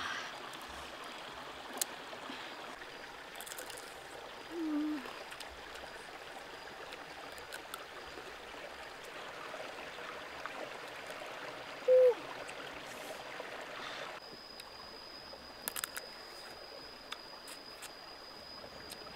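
Steady rush of running water, which drops away about fourteen seconds in, with a few sharp clicks from crab shell being cracked and peeled by hand. Two short falling pitched calls break through, the second, about twelve seconds in, the loudest sound.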